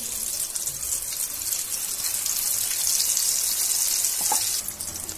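Chickpea shami kebab patties shallow-frying in hot oil in a pan: a steady, dense sizzle.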